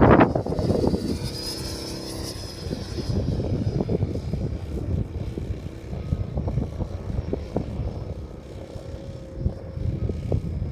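Radio-controlled model airplane's motor and propeller running as it flies past, clearest in the first few seconds and then fading, with gusty wind buffeting the microphone.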